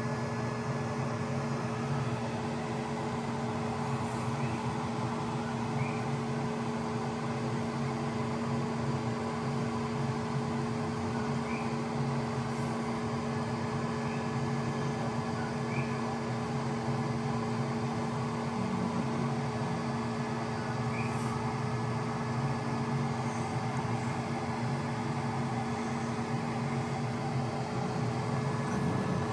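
Steady mechanical hum of a running motor, with a few faint light ticks.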